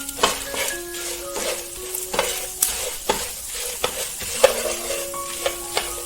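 Food sizzling and frying in a pan while a spatula stirs it, with repeated scraping knocks against the pan about twice a second. Soft background music with held notes plays underneath.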